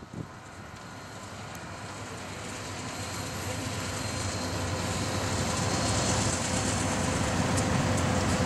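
Union Pacific freight train passing, its diesel locomotives and then covered hopper cars rolling by on the rails. The steady rumble grows louder over the first six seconds, then holds.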